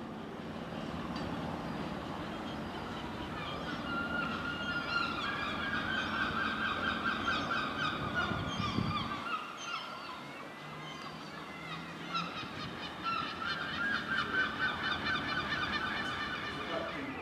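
Container freight train moving away over curving track, its wagon wheels squealing in drawn-out, wavering high tones that come in two long stretches. A low rumble from the train drops away about halfway through.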